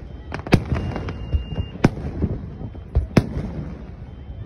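Aerial fireworks shells bursting: about five sharp bangs, two of them close together near three seconds in, with a low rumble and crackle between the reports.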